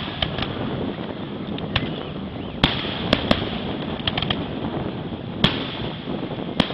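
Aerial fireworks shells bursting: sharp bangs at irregular intervals, a cluster of quicker cracks in the middle, over a steady background of noise.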